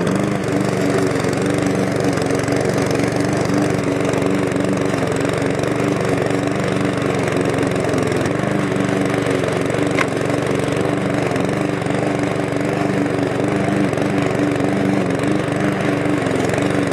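Cobra MX460 SPC petrol rotary lawn mower running steadily under load while cutting grass at its lowest height setting, throwing the clippings out of its side discharge chute.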